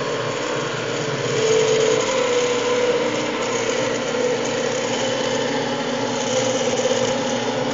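Cue lathe motor running steadily, spinning a pool cue while a hand-held bearing-roller press is run along its Irish linen wrap to press it down. A steady hum with a slightly wavering tone.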